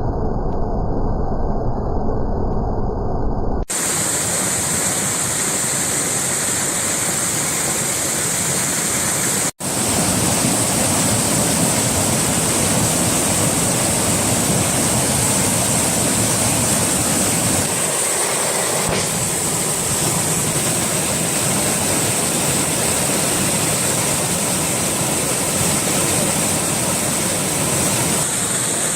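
A waterfall on a mountain creek rushing steadily. The sound is muffled for about the first four seconds, then turns full and hissy, with a brief dropout about ten seconds in.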